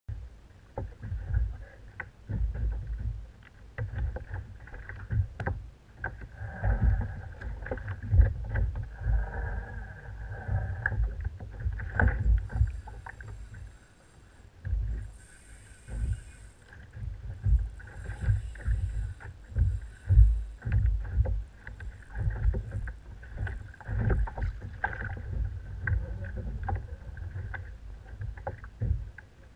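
Choppy water slapping and lapping against a plastic sit-on-top fishing kayak's hull, in uneven knocks and splashes, with wind buffeting the microphone.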